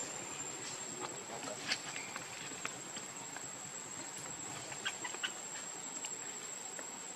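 Outdoor ambience: a steady, high-pitched insect drone with scattered small clicks and taps.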